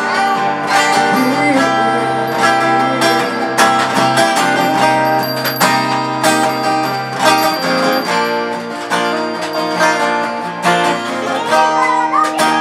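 Guitar playing chords in a wordless instrumental passage of a live song, with regular strokes and chord changes along the way.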